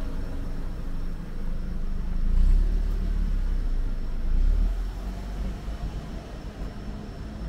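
Low rumble of a passing motor vehicle on a city street, swelling twice, about two and a half and four and a half seconds in.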